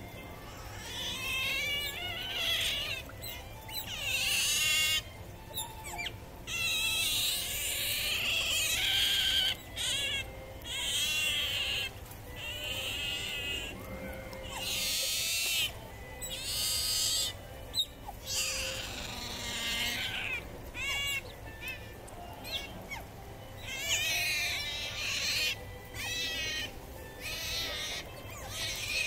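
Several Asian small-clawed otters squeaking and chirping in repeated high-pitched, wavering calls, begging for food.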